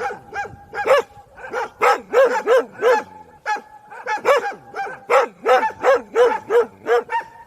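A dog barking in a rapid, steady run of sharp barks, about three a second, with short breaks around one second and three seconds in.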